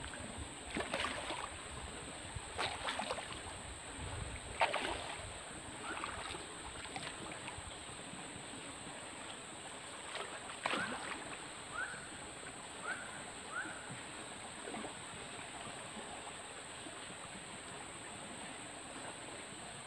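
Faint steady rush of a flowing muddy stream, with scattered light clicks and swishes from the baitcasting rod and reel being worked, mostly in the first half. About two-thirds of the way through come three short rising chirps.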